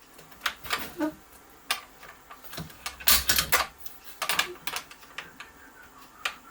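Irregular clicks, taps and short scraping handling noises from working on the wooden parts of a window sun shade, with no power tool running.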